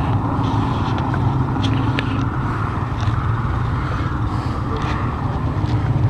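A vehicle's engine running steadily, a low hum, with a few faint clicks over it.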